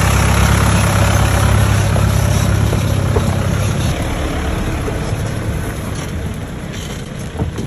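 Mahindra Thar's engine running at low revs as the SUV crawls past close by over the rocky track. The sound is strongest for the first few seconds and then fades steadily as the vehicle moves away up the trail.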